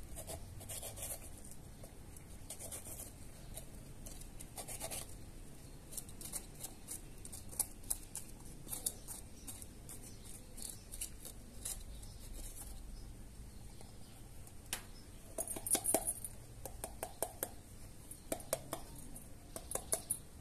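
Small knife cutting and scraping around the inside of a red bell pepper to hollow it out: irregular crisp snicks and scrapes of the blade through the pepper flesh and core, coming thicker near the end.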